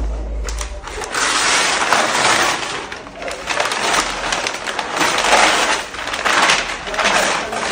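Packing material rustling and crinkling in repeated bursts as a package is unwrapped.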